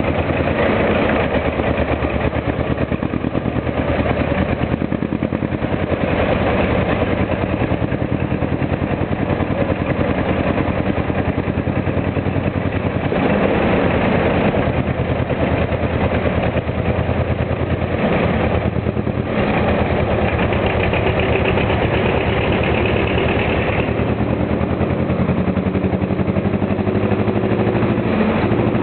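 Vintage diesel tractor engines running loud and steady, working under load as one tractor pulls against another.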